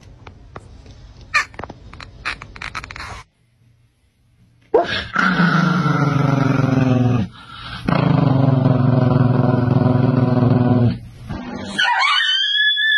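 A small dog growling in two long, steady stretches. Near the end a husky starts a high, rising and falling howl-like call.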